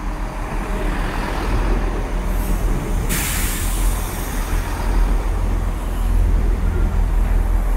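Class 166 Networker Turbo diesel multiple unit pulling into the platform: underfloor diesel engines running and wheels rumbling on the rails as it slows. A hiss comes in suddenly about three seconds in.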